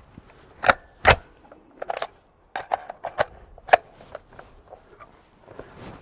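A string of short, sharp clicks and knocks from handling a 5.56 carbine as it is readied to shoot, about six over four seconds, the loudest about a second in.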